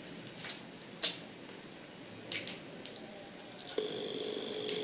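Close-up eating sounds of crispy fried chicken wings: a handful of short, sharp crunches and wet smacks from biting and chewing. Near the end a steady humming tone comes in and holds.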